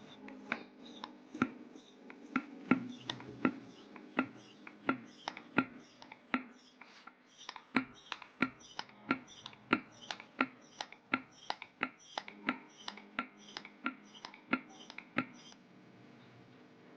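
Sharp clicks or taps repeating about twice a second over a faint steady hum, stopping shortly before the end.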